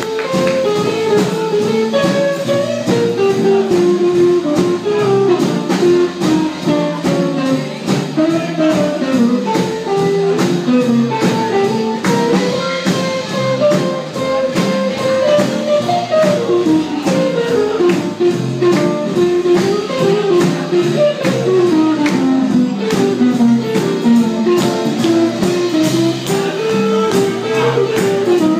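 Small traditional jazz band playing an instrumental passage: a guitar picks a single-note melodic line over upright bass and a steady beat.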